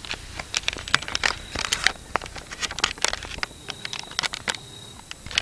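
Dry leaf litter crackling and rustling in quick irregular bursts close to the microphone, as someone moves through the leaves and handles the camera.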